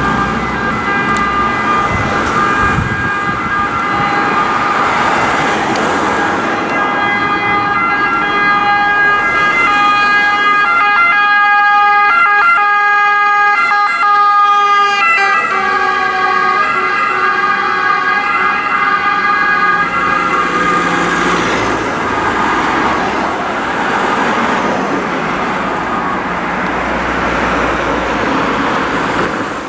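Ambulance siren, a two-tone wail, growing louder as the ambulance approaches. It drops in pitch about halfway through as the ambulance passes, then recedes under the noise of passing cars.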